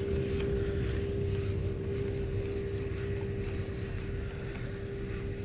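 A boat engine running steadily: a constant hum over a low rumble, with wind on the microphone.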